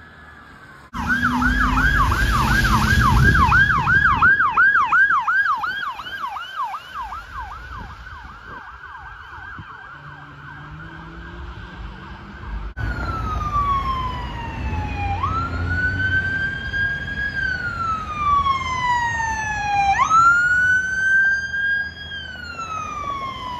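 Police car sirens. A fast yelp sweeps up and down about four times a second over the rumble of a vehicle passing close, then settles into a steady high tone. After a cut, a slower wail falls and rises over a few seconds per cycle.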